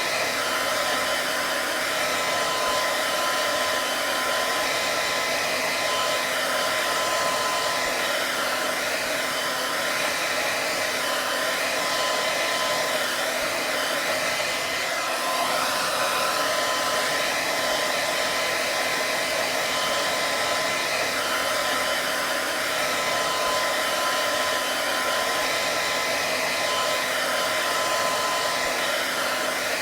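Hair dryer running steadily: an even rush of blown air with a thin, steady motor whine.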